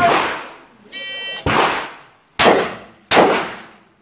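Semi-automatic 12-gauge shotgun, a Beretta 1301, fired four times at an uneven pace. Each shot is sharp, with a long echoing tail.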